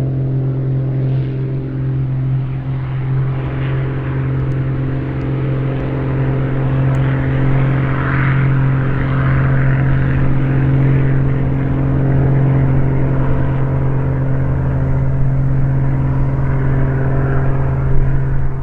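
Van's RV-7 light aircraft's piston engine and propeller at full take-off power, a steady drone holding one pitch as the plane lifts off and climbs away.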